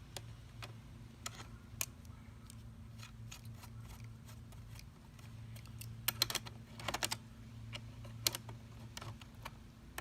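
Light, scattered metallic clicks and taps from tightening the bar nuts on an electric pole saw, with a denser run of clicks about six to seven seconds in.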